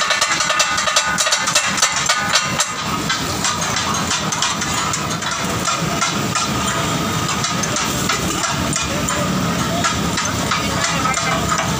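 Steel chopping blades clattering rapidly on a large flat iron griddle as katakat is chopped and tossed, the clatter the dish is named for, over hissing steam from the hot griddle. The clatter is densest in the first few seconds and thins out later.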